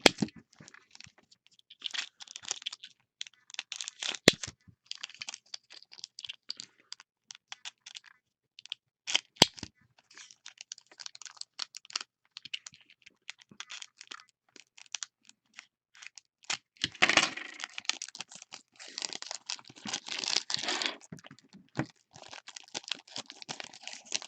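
Retail trading-card boxes and foil card packs being handled and opened: scattered clicks, scrapes and tearing of cardboard, then denser crinkling of pack wrappers in the last third.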